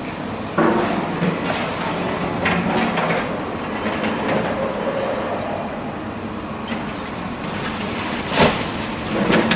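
Komatsu excavator running while its grapple breaks up a concrete-block wall, with rattling, grinding and cracking of concrete throughout. A sharp crash comes near the end as a slab of wall falls.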